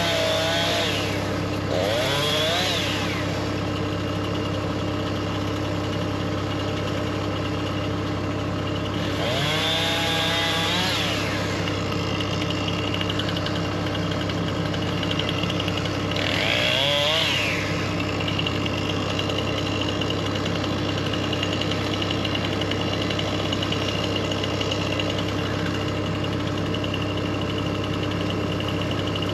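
Heavy earthmoving machine's engine running steadily, its pitch rising and falling briefly four times as the machine works.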